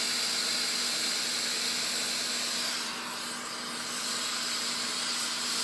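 Handheld gas torch burning with a steady, noisy hiss as its blue flame heats a brass brace tube to anneal it. The hiss dips slightly about three seconds in.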